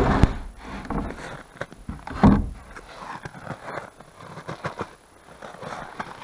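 Pair of wooden barn-style doors on a board-and-batten shanty being swung shut by hand, closing with a loud knock about two seconds in, with smaller knocks and scuffs of handling around it.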